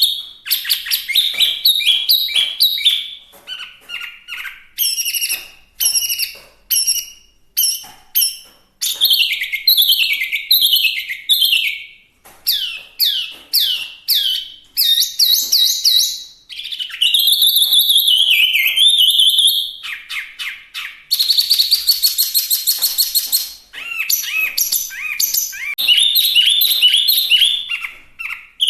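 Hwamei (Chinese hwamei) singing loudly in full song: a varied run of whistled phrases, with quick repeated notes and series of down-slurred notes. About three-quarters of the way through comes a rapid, dense trill, and there are short pauses between phrases.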